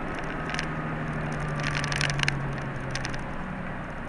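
Route bus heard from inside the passenger cabin while driving: a steady low engine hum over road noise, with brief clicking rattles about halfway through.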